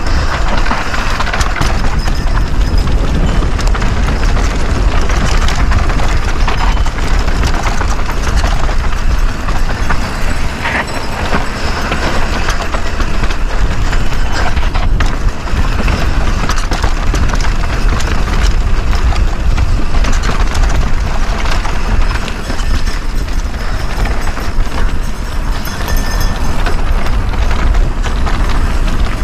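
Mountain bike riding fast down a rocky trail, heard from an on-board GoPro: a continuous heavy rush of wind over the microphone, with tyres crunching over rock and dirt and the bike rattling and clattering over bumps.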